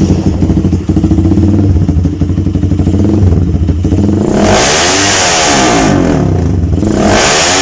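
Motorstar Z200 motorcycle engine through an aftermarket Termignoni slip-on exhaust canister, running steadily and very loud, then revved hard twice, about four and a half seconds in and again near the end, each rev rising and falling in pitch.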